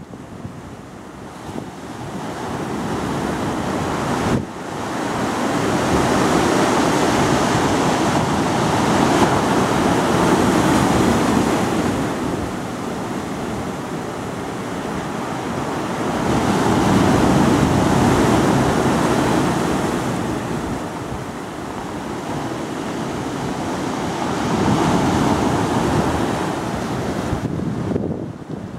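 Ocean surf breaking and washing over rocks, swelling and easing back in three long surges of several seconds each, one wave crashing in suddenly about four seconds in. Wind buffets the microphone throughout.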